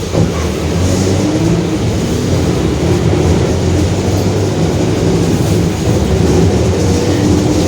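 Mercedes-Benz OF-1721 Bluetec 5 bus under way, its diesel engine running steadily under a whining hum from the rear differential that rises slightly in pitch toward the end: a growling ("roncando") differential. A short knock comes just after the start.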